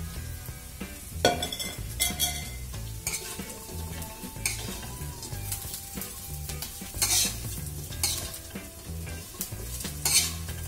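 Stainless steel spatula scraping and knocking against a wok while fried tempeh cubes are stir-fried with sliced shallots, garlic and chilli, over a steady sizzle. The scrapes come every one to three seconds.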